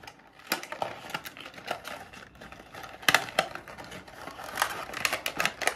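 Irregular clicks and taps of plastic parts and packaging being handled while a small ring light is unpacked, with the loudest knocks about three seconds in.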